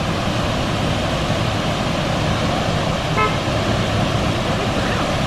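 Steady rushing of a waterfall, with one short high toot about three seconds in.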